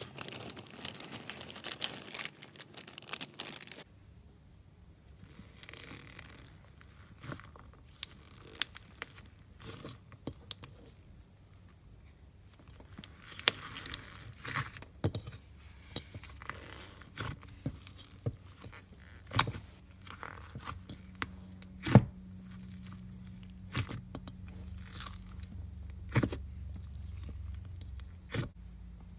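Plastic cling film peeled and crinkled off a tub of slime for the first few seconds, then hands squishing, pressing and kneading thick slime with foam cubes mixed in, with many scattered sharp pops and clicks.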